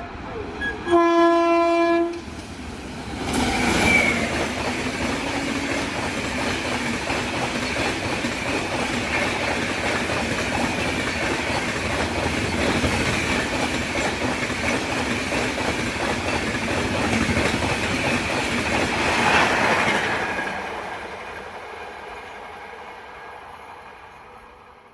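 WAP-7 electric locomotive's horn giving one short blast about a second in, then the express train passing at speed: a steady rush of wheels on the track for some fifteen seconds that fades away near the end.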